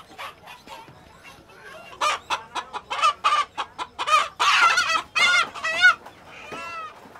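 Chicken squawking as it is handled: a fast run of loud, repeated calls from about two seconds in, ending in one weaker call near the end.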